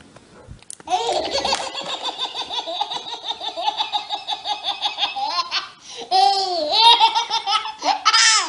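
Baby belly-laughing: for about five seconds a long run of quick, high-pitched laugh pulses, then louder squealing laughs that rise and fall in pitch near the end.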